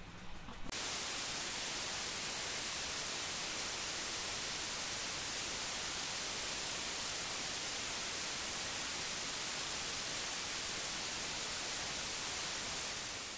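Television static hiss, the white noise of an untuned analogue TV, starting suddenly about a second in, holding steady, and fading out near the end.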